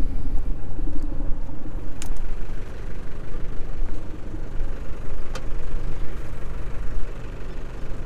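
Boat's outboard engine idling steadily. Two sharp knocks, about two seconds in and again a little after five seconds.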